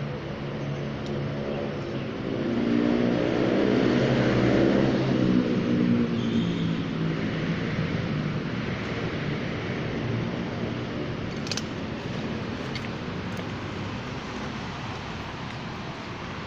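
A motor vehicle passing close by on the road, its engine note swelling and fading away, loudest about three to six seconds in, over steady traffic noise. A few faint clicks come later.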